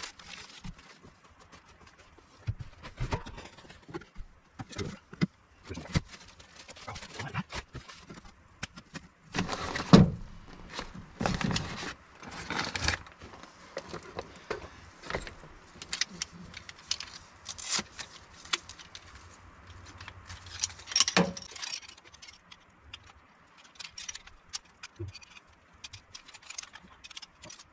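Irregular handling clatter: clicks, knocks and metallic clinks as a metal-framed folding camp chair is pulled from a truck bed and opened, with a loud knock about ten seconds in and another about twenty-one seconds in.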